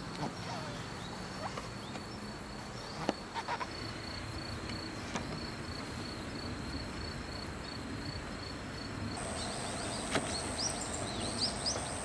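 Insects singing: a steady, finely pulsed high trill, with a second, higher trill taking over about three-quarters of the way through. A few sharp knocks from a knife cutting mushrooms on a wooden board.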